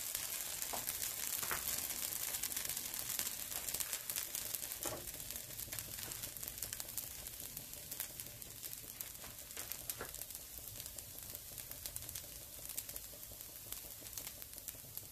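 Dosa sizzling in oil on a cast iron pan: a steady high hiss dotted with many tiny crackles, slowly fading as it cooks.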